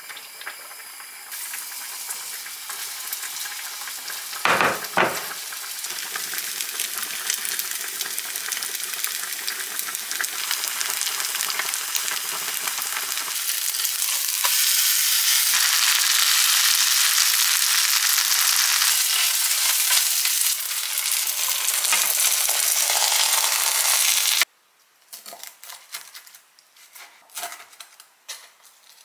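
Food sizzling in hot oil in a frying pan, a steady hiss that grows louder about halfway through and cuts off abruptly near the end, with a single knock from the pan or a utensil a few seconds in.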